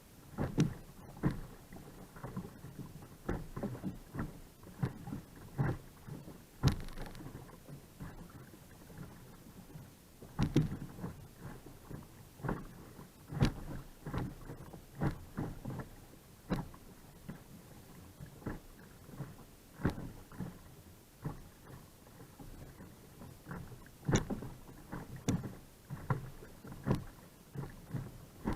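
A kayak being paddled: short, irregular splashes and slaps of water from the paddle blades and against the hull, one or two a second.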